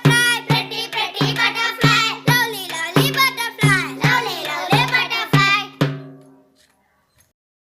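Background music: a song with singing over a steady beat and a held low note. It fades out about six seconds in.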